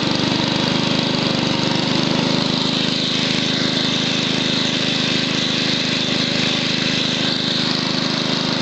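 1967 Wheel Horse Lawn Ranger's 6 HP Tecumseh single-cylinder engine running steadily.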